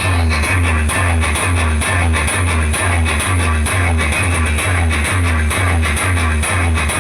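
Instrumental section of a Brazilian funk track: heavy repeating bass pulses about twice a second, with a short plucked riff of falling notes over them.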